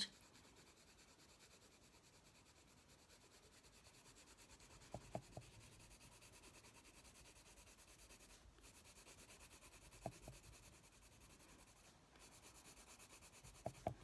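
Prismacolor coloured pencil rubbing on paper in faint, continuous shading strokes, with a few soft ticks.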